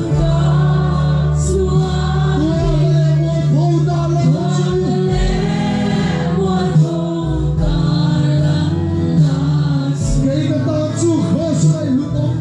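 A large crowd singing a gospel worship song together over amplified music, with steady low notes and regular cymbal strikes.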